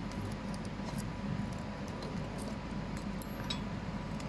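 Faint, scattered light metallic ticks of a wrench working the nut on a MoSi2 heating element's aluminium terminal strap, over a steady background hum.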